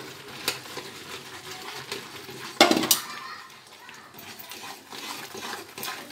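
Steel ladle stirring freshly added grated coconut into one-string sugar syrup in a metal kadai, scraping and clinking against the pan. One louder clank about two and a half seconds in.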